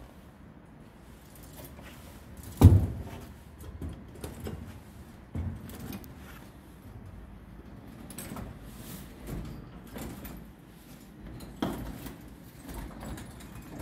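Scattered knocks and thumps with light clatter, the loudest about two and a half seconds in and another near the end.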